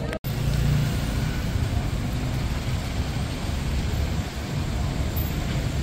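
City street traffic: a steady low rumble and hum of passing cars and trucks, after a brief cut-out just after the start.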